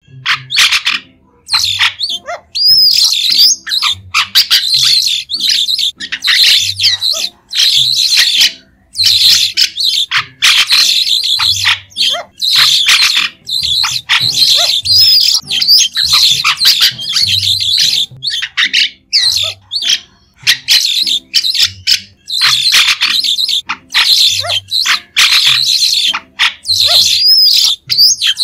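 White-shouldered starling (Sturnia sinensis) giving short, shrill calls in rapid, dense runs broken by brief pauses.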